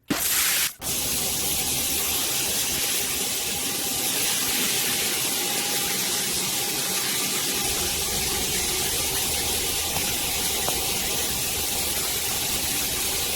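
Water spraying steadily from a large rainfall shower head: an even hiss of falling water, with a brief break under a second in.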